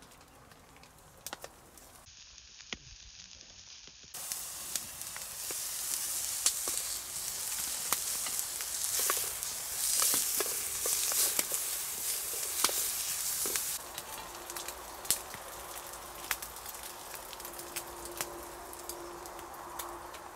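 Sliced onions sizzling in a frying pan over a small wood-burning box stove, with a wooden spatula scraping as they are stirred and the fire crackling. The sizzling comes in loud about four seconds in and drops to a quieter crackle about two-thirds of the way through.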